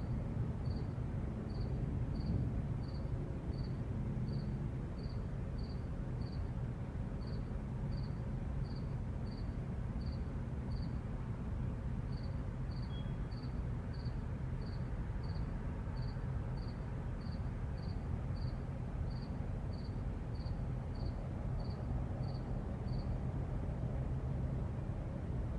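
A single cricket chirping at a steady pace, about one to two chirps a second, over a low steady rumble of distant traffic. The chirping pauses briefly near the middle and stops a little before the end.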